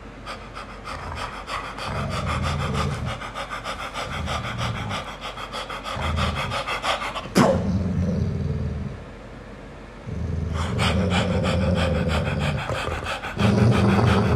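Fast, rhythmic dog-style panting done by a person as a beatbox imitation. It breaks off with a sharp click about halfway through and starts up again a few seconds later.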